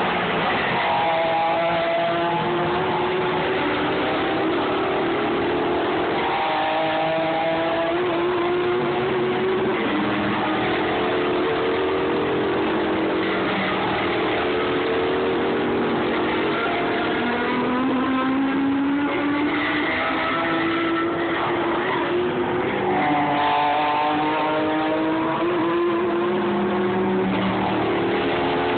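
Race car engines, sports prototypes and GT cars, passing one after another and accelerating, their pitch climbing and dropping back at each gear change, with several engines overlapping.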